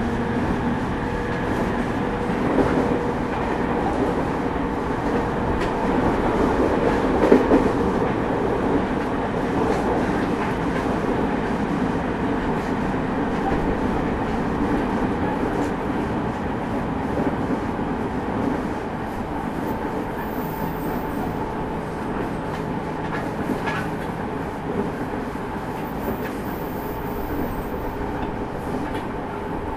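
JR East 209 series 500-subseries electric train running, heard from inside the car: a continuous rumble of wheels on rail with occasional rail-joint clacks and steady motor tones, and the car's air conditioning running.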